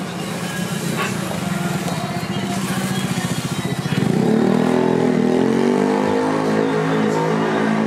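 An engine running steadily, then revving up, rising in pitch and getting louder about four seconds in.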